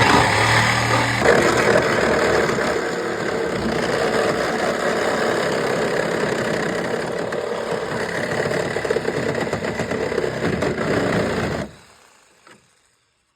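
Power cutting tool running continuously as it cuts through the sheet-metal trunk of a car, loud and steady, then stopping abruptly about a second and a half before the end.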